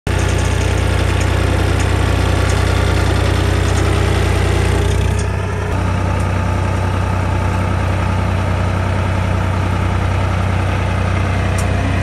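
Swaraj 963 FE tractor's diesel engine idling steadily with a low, even hum; its sound dulls slightly about five seconds in.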